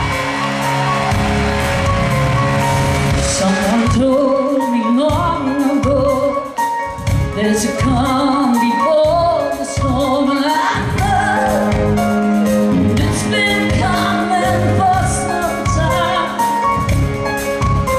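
Live rock band playing, with drums, bass and electric guitar, and a woman singing the lead vocal over them.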